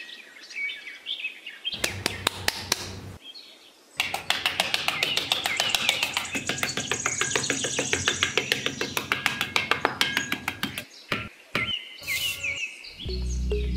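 Small metal hand trowel scraping across sand in rapid, even strokes, stopping about three quarters of the way through, with birds chirping over it.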